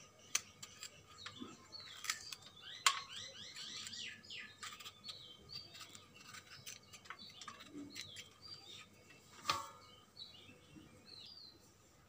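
Small birds chirping in quick short falling notes, busiest a few seconds in, with a few sharp snaps from a knife trimming fresh flat bean pods; the loudest snaps come about three seconds in and near the end.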